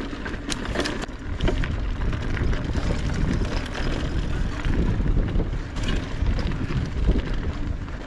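Mountain bike being ridden along a dirt trail: wind rumbling on the microphone, with sharp clicks and rattles from the bike over the ground.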